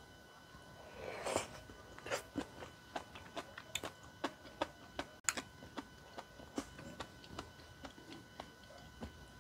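Close-miked eating of tteokbokki rice cakes and noodles: a short slurp of noodles about a second in, then wet chewing with many small mouth clicks, two or three a second.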